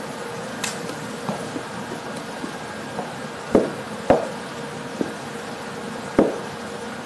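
Kittens bumping and pawing against a small glass box, making a series of short knocks. Three louder ones come about halfway through and one more near the end, over a steady hiss with a faint hum.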